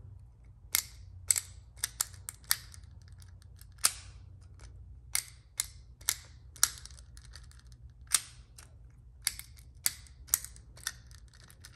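Sensory FX 'The Pop-Up' ASMR pod, a small plastic toy, making sharp plastic clicks and pops as it is worked by hand, at an uneven pace of about two a second.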